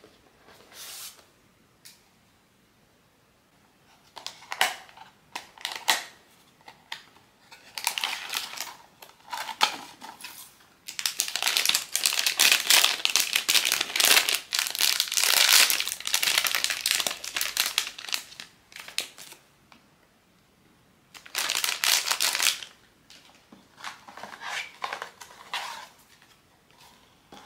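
Blind box packaging being opened by hand: crinkling and tearing in irregular bursts, the longest and loudest run in the middle, with a short burst after it.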